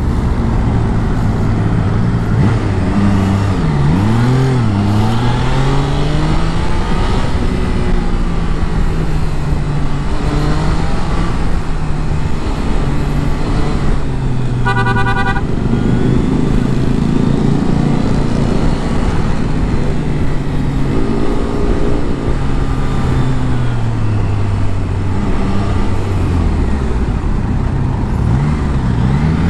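Motorbike engine running on the road, its pitch rising and falling as it speeds up and slows in traffic. A vehicle horn toots briefly about halfway through.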